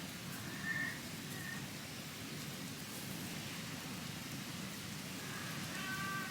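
Steady rain falling, a continuous even hiss and patter. Over it comes a short high-pitched call just under a second in, which is the loudest moment, a fainter one shortly after, and a brief pitched call near the end.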